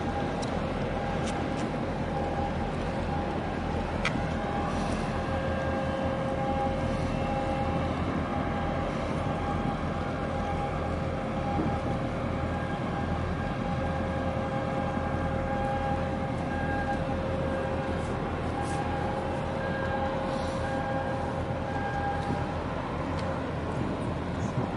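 Marine diesel engines running at work in the harbour: a steady low rumble with a whining tone that fades in and out.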